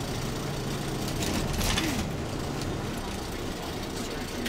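Shuttle bus engine and road noise heard from inside the cabin as the bus drives along, a steady low hum, with a brief louder burst of noise about a second and a half in.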